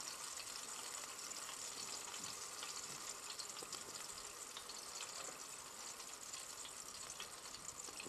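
Flour-dusted pieces of carp shallow-frying in oil in a frying pan on a portable gas cooker: a faint, steady sizzle dotted with small crackles.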